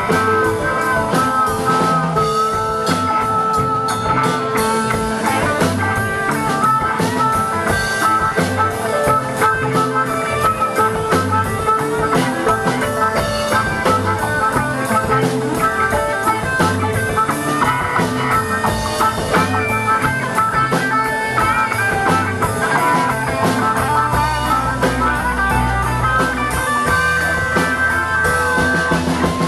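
Live blues-rock band playing: electric guitars and drum kit, with a harmonica playing held, wavering lead notes over the rhythm.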